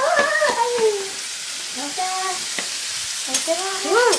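Food sizzling in a frying pan, a steady hiss, with children's voices briefly over it at the start, around halfway and near the end.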